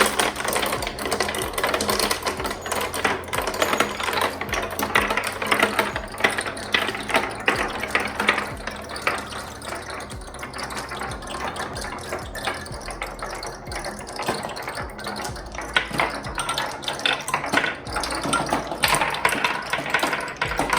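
Many marbles rolling and clattering down a marble-run track in a dense, continuous rattle of small clicks. The rattle thins a little about halfway through and fills out again near the end.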